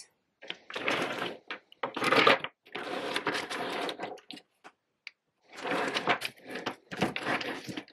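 Plastic lipstick and lip gloss tubes clicking and clattering as they are picked up, sorted and set down on a wooden tabletop, in several short bursts of handling noise with pauses between.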